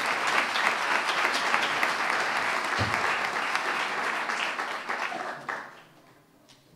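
Applause: many people clapping in a dense, steady patter that dies away about five and a half seconds in.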